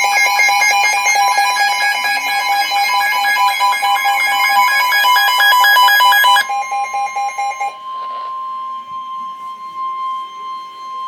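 Emergency Alert System alert tones: a loud, harsh two-pitch alarm that flutters rapidly back and forth, dropping about six and a half seconds in to a single steady tone held to the end. The tones announce a severe thunderstorm warning.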